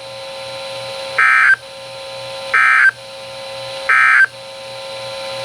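Emergency Alert System SAME end-of-message tones from a NOAA Weather Radio broadcast: three short, loud bursts of shrill digital data, about a second and a half apart, marking the end of the warning. A steady hum and hiss from the radio fill the gaps between them.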